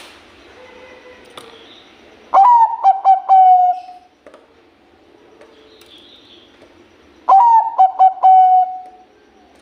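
Zebra dove (Bangkok-bred perkutut) singing: two song phrases about five seconds apart. Each opens with a sharp rising note, runs into a quick string of rolling coos, and ends on a longer drawn-out coo.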